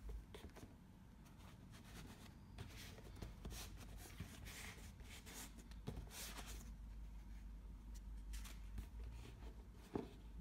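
Faint scraping and rustling of a cardboard gift box being handled and turned over, fingers sliding across its surface, with a sharper knock about ten seconds in.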